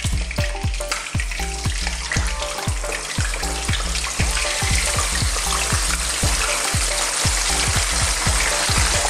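Marinated chicken wings sizzling and bubbling in hot oil as they are lowered in one by one for deep frying, the hiss building as more wings go in about halfway through. Background music with a steady beat plays underneath.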